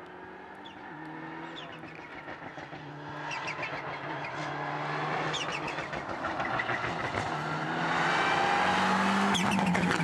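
Mitsubishi Lancer Evolution X rally car's turbocharged four-cylinder engine revving hard and growing steadily louder as the car approaches at speed. A few sharp cracks cut through the engine note.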